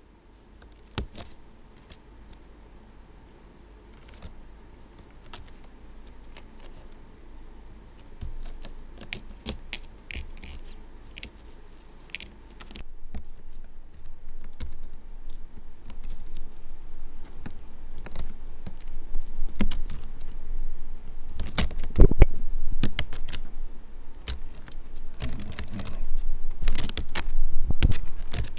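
Two kittens scrabbling and wrestling inside a woven seagrass cat house: their claws scratching and clicking on the woven fibres, sparse at first and growing busier and louder through the second half, with a few dull bumps against the basket.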